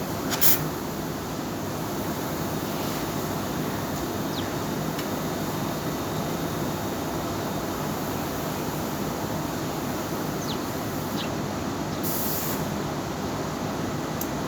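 Steady mechanical running noise with a faint low hum, broken by two short, high hisses: one about half a second in and a longer one about twelve seconds in.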